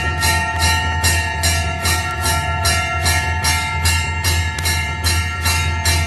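Temple bells (ghanta) rung continuously during a Hindu aarti, struck in a fast even rhythm of about two to three strokes a second, their ringing tones overlapping and carrying through, over a steady low hum.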